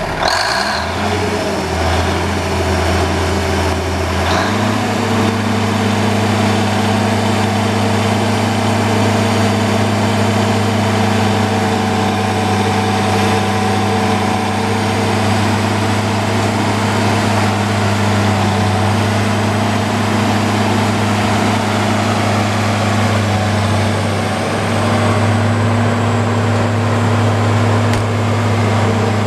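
Cummins NTA-855 six-cylinder turbo diesel of a Ford Versatile 946 tractor running. The engine speed steps up once, about four seconds in, then holds steady.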